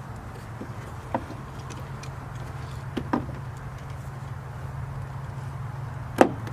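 Scattered sharp plastic clicks and snaps from red wire-tap connectors being handled and squeezed shut with pliers onto the car's wiring, the loudest near the end, over a steady low hum.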